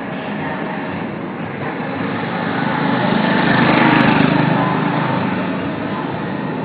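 Street traffic noise with a small motorbike engine passing close, growing louder to a peak about four seconds in and then fading, with a single sharp click at the loudest point.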